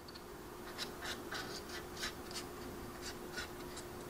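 Small paintbrush stroking and dabbing oil paint along the panel lines of a plastic scale model: faint, irregular scratchy brush strokes against the plastic, a few a second, over a faint steady hum.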